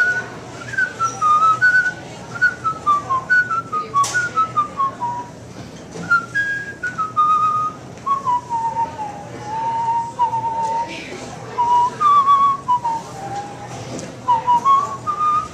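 A man whistling a tune by mouth: one clear melody line in several phrases, some stepping downward note by note, with short breaks between phrases.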